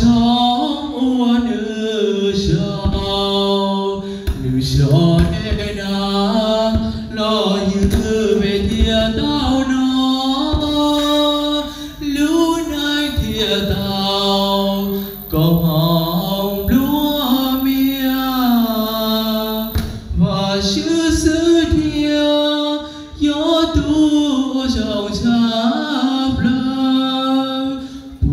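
A man singing a slow song solo through a microphone, holding long notes that slide between pitches, with short pauses for breath between phrases.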